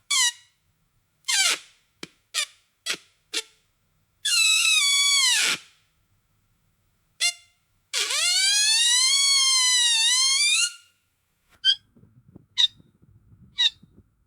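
Squeaky wooden floorboard creaking under weight. A run of short squeaks is followed by two long, drawn-out creaks whose pitch bends, about four and eight seconds in, then fainter short creaks near the end.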